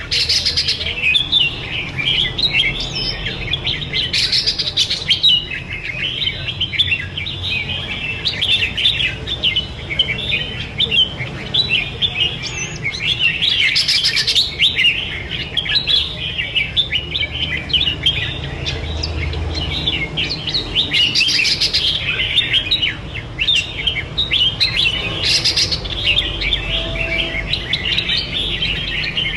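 Two caged red-whiskered bulbuls singing against each other in a song duel: a continuous stream of quick chirps and warbled phrases, with louder flourishes every few seconds.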